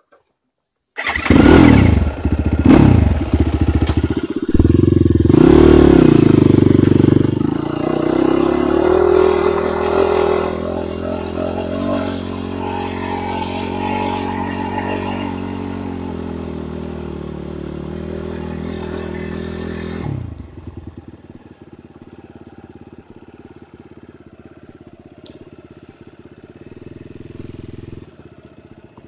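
Enduro dirt bike engine revved hard about a second in, with several quick rises and falls in pitch. It then runs steadier under throttle and about twenty seconds in drops to a much quieter, steady low running sound.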